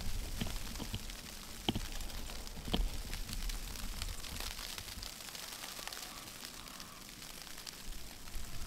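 Outdoor wind noise on the microphone: a low, uneven rumble with a few sharp clicks, the rumble dying down about five seconds in.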